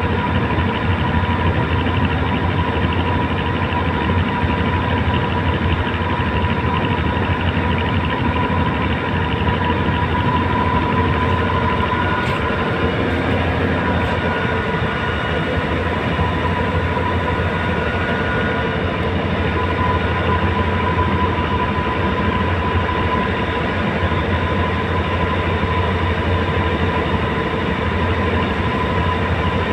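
A tugboat's diesel engine running steadily, giving a constant drone with a steady hum that holds the same pitch and level throughout.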